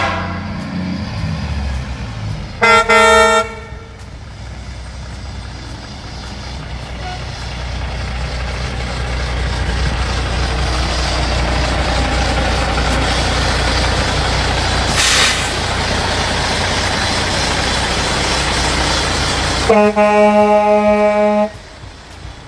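18-wheeler semi truck sounding its air horn three times: right at the start, a short blast about three seconds in, and a longer blast near the end. Between the blasts the truck's diesel engine rumbles, growing louder, with a short burst of hiss about midway.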